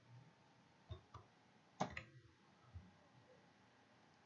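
A few faint, separate clicks from computer keyboard and mouse use, the loudest a little under two seconds in, over near silence.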